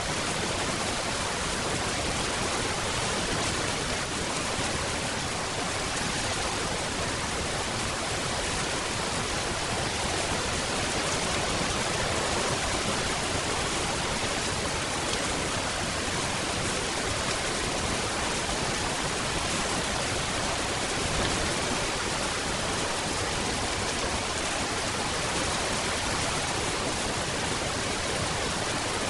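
Steady, dense rainfall, an even hiss with no distinct drops or thunder.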